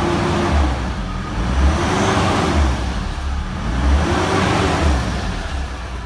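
Nissan 4x4's turbocharged engine revved from idle three times, each rev rising and falling back, about two seconds apart. The mechanic flags an unusual sound during these revs; the vehicle has a failing turbo and oil cooler and is losing oil.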